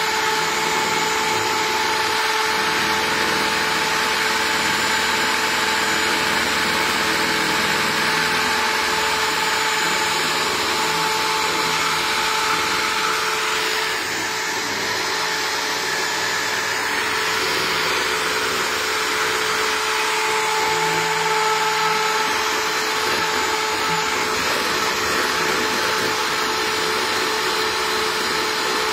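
Electric hand mixer running steadily, its beaters whipping egg whites into meringue, with a brief drop in level about halfway through.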